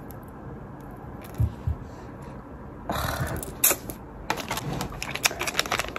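Metal bracelets and a link watch being fastened on the wrist: two soft thumps, a brief rustle, then a run of light clicks and clinks.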